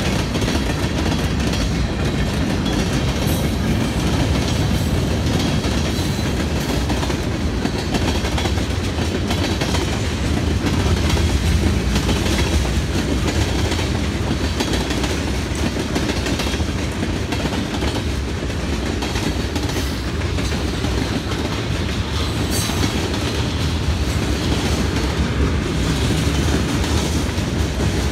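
Freight train of tank cars and hoppers rolling past at steady speed: a continuous rumble of steel wheels on rail with repeated clicking as wheels pass over rail joints.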